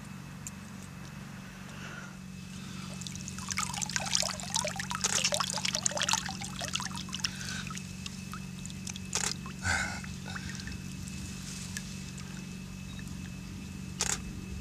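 Lake water splashing and trickling at the bank's edge as a big carp is held over it, with a few sharp knocks later and a steady low hum underneath.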